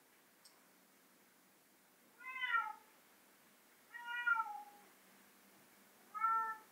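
A domestic cat meowing three times, each call under a second long. The first two slide down in pitch and the last is short and level.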